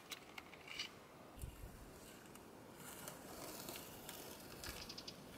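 Faint crackling and rustling of masking tape being peeled off a painted window frame and scrunched in the hands, with a few crisp strips tearing away near the end.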